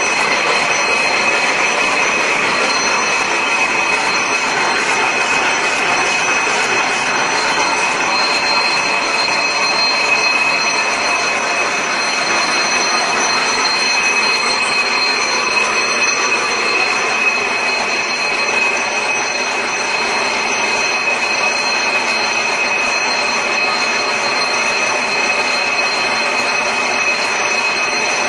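Automatic barbed-wire making machine running steadily: a loud, dense mechanical noise with a steady high-pitched whine over it.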